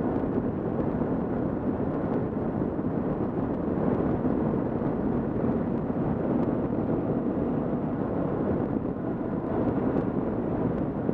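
Kawasaki KLR650's single-cylinder engine running steadily at cruising speed, mixed with wind rush over the helmet-mounted camera.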